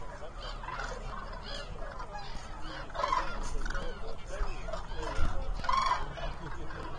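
A large flock of common cranes calling, many calls overlapping, with two louder calls standing out about three and six seconds in.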